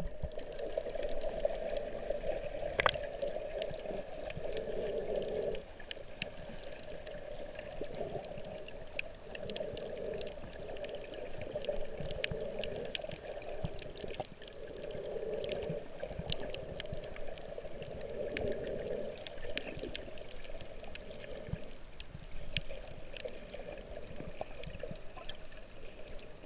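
Underwater sound through a GoPro's waterproof housing: a muffled water rush that swells every few seconds, with scattered sharp clicks and crackles.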